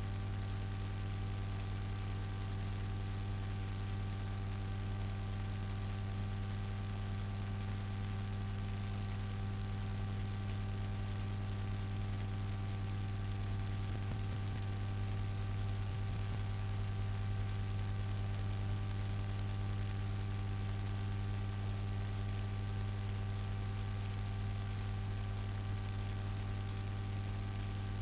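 Steady electrical mains hum: a low buzz with several higher overtones over a faint even hiss, unchanging throughout.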